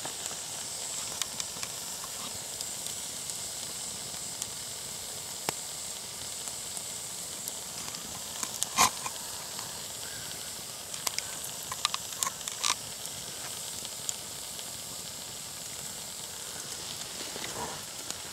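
Fire-heated rock sizzling in water in a birch bark bowl, a steady high hiss as it gives off steam. A few sharp pops stand out, the loudest about nine seconds in.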